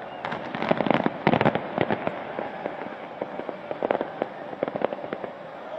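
Aerial fireworks shells bursting in rapid volleys of sharp cracks and pops. The bursts come thickest about half a second to two seconds in, then again about four to five seconds in.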